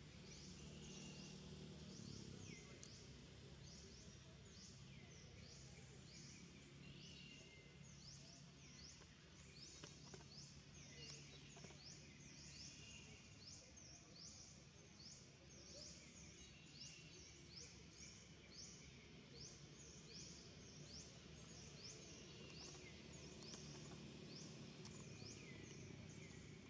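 Faint outdoor background with a high, falling chirp repeated evenly about three times every two seconds.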